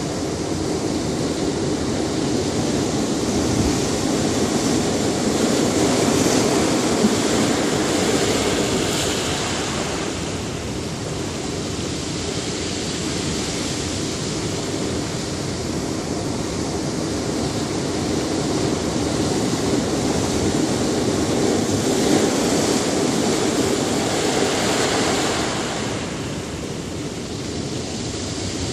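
Ocean surf breaking and washing up on a beach, a steady rush that swells and eases in slow surges, building twice to a peak.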